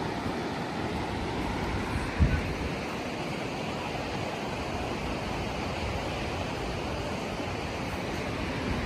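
Steady rushing of the Swat River's rapids, with a brief low thump about two seconds in.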